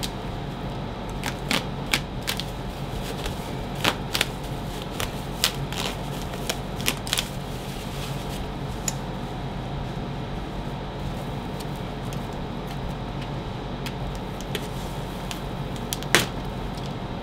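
Plastic packaging and bubble wrap being pulled off and handled: scattered sharp crackles, most in the first seven seconds and one more near the end, over a steady low hum.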